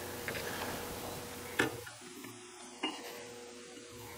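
Light metallic clicks of an outside micrometer being slid over and off a Porsche 911E crankshaft journal to check whether it is on size, the sharpest about a second and a half in and another near three seconds, over a faint steady hum.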